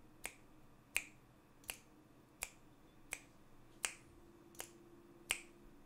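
Finger snaps keeping a steady beat, a little under one and a half snaps a second, eight in all: the pulse counted for reading a 4/4 rhythm aloud.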